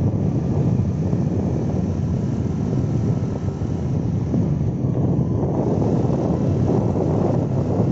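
Wind buffeting the microphone: a steady low rumbling rush with no clear tone.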